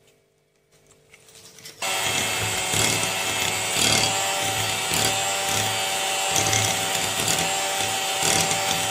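Electric hand mixer switching on about two seconds in and running steadily. Its beaters are whipping a freshly added egg into creamed butter and sugar in a glass bowl.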